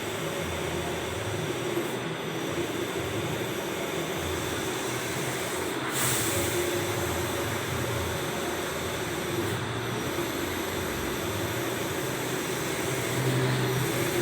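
Allwin 512i large-format printer running as it prints, a steady mechanical whirr with a short, sharper noise about six seconds in.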